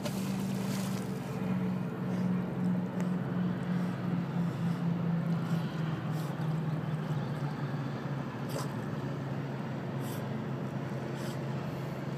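A motorboat engine droning steadily, its pitch slowly sinking over several seconds, with a few faint clicks.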